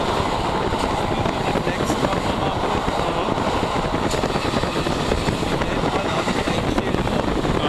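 Wind buffeting the microphone over the rolling rumble of a long container freight train passing below.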